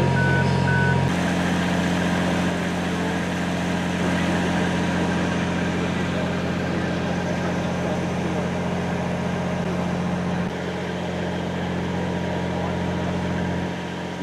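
GE U25B diesel locomotive idling: a steady, even engine rumble. It drops a little in level near the end.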